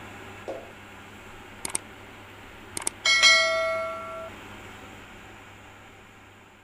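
Subscribe-button sound effect: two quick double clicks, then a bell ding that rings for about a second and fades, over a steady background hiss.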